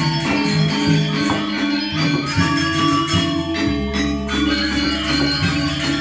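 Balinese gamelan orchestra playing live: bronze metallophones and gongs ring in layered sustained tones over a fast, even pulse of bright metallic strikes, with a hand drum among them.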